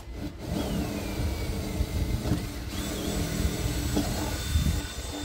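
Power drill running steadily with a high motor whine, boring a guide hole through a catamaran's hull.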